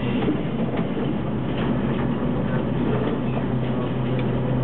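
Ikarus 280 articulated city bus's diesel engine running with a steady drone, with a few faint clicks and rattles over it.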